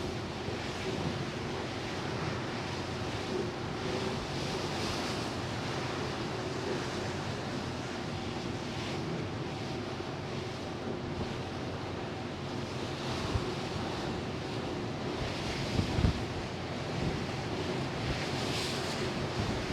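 Steady rush of sea water and wind past a large passenger ferry under way, over a faint constant hum from the ship. The hiss swells now and then, and a few gusts knock against the microphone.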